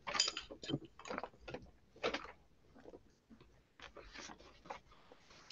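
Faint, irregular clicks and mouth or handling noises picked up by an open microphone on a video call, in a pause between speakers.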